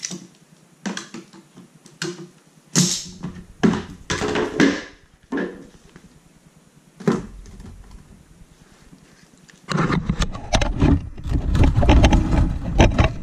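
Plastic irrigation valve box and its lid being handled close by: a run of separate knocks and clunks, then, about ten seconds in, several seconds of loud, close scraping and rustling.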